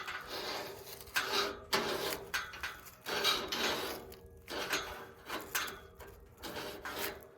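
Metal gate drop rod being worked through its clamps: a series of short, irregular scrapes and knocks as the rod slides and drops.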